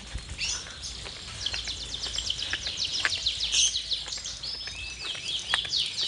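Birds chirping in a busy chorus: many quick, high, downward-sliding chirps overlapping, over a steady low hum, with a few sharp clicks.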